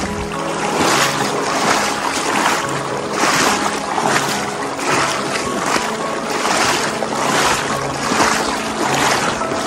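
Rushing water and wind noise surging over and over, about one and a half times a second, with faint background music underneath.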